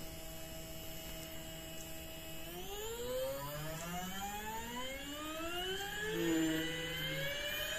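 DSH-200 stepper motor driven by an Allegro A4988 driver, whining with a set of steady tones. From about two and a half seconds in, all the tones rise steadily in pitch as the motor speeds up.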